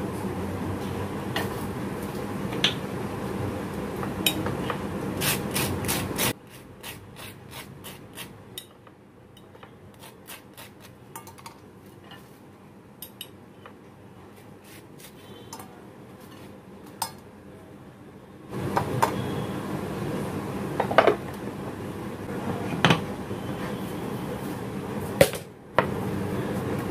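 Butter knife clicking and scraping against a ceramic butter dish and plates while butter is spread on toast: many light clicks and a few sharper knocks. A steady hum sits under it, dropping away for about twelve seconds in the middle.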